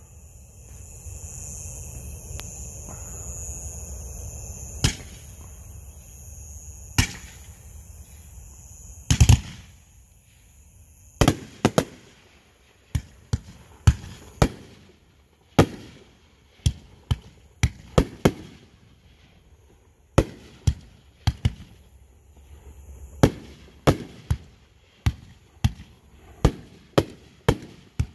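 A series of sharp, loud bangs. A few come scattered over the first ten seconds, then they arrive about one or two a second. A steady low rumble underlies the first nine seconds.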